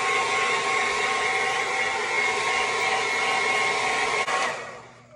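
Hair dryer blowing steadily, with a hum of several steady tones over the rush of air, then switched off and dying away near the end.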